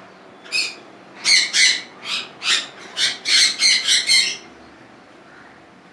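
Caged parrots, most likely conures, giving a rapid run of about a dozen short, harsh squawks that stop about four and a half seconds in.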